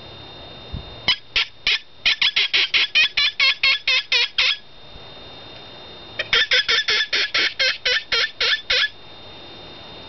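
Open-reed distress predator call blown to imitate a bird in distress: two runs of short, high squeals, about five a second, with a pause between.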